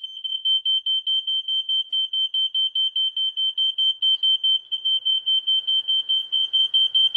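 A fireX 120-538B smoke alarm and a second smoke alarm sounding together on their test buttons: one high steady tone pulsing quickly, about six pulses a second.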